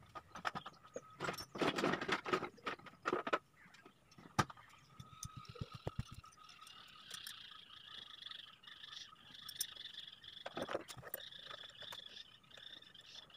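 Scattered sharp clicks and light knocks over the first few seconds, one more sharp click a little later, and a brief rapid low rattle around six seconds in. Behind them a steady, pulsing high chirring runs through the rest.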